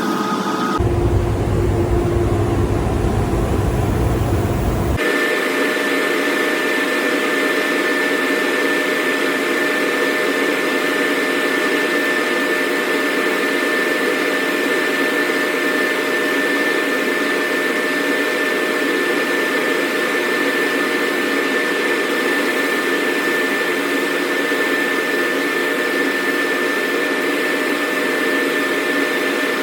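A body-shop tool running steadily: a loud whir with a constant high whine over it. The sound changes abruptly about a second in and again about five seconds in, where the deep rumble drops out.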